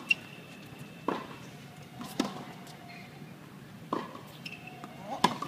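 Tennis rally on a hard court: a ball struck by rackets and bouncing, a sharp pop about every second. A player's short grunt comes with the stroke near the end.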